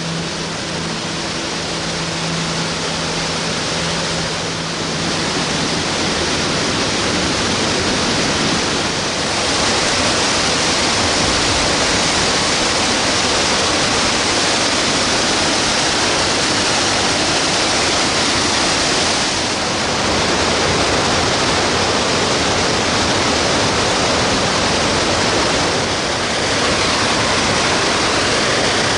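Waterfall: a steady, loud rush of falling water that grows louder over the first several seconds. The tail of background music fades out in the first few seconds.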